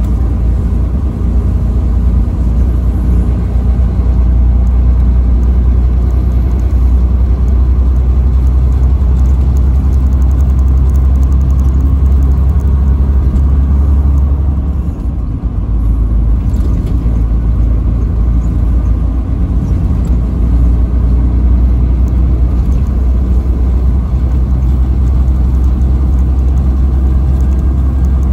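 Truck driving on the highway: a steady, loud low rumble of engine and road noise that eases briefly about halfway through.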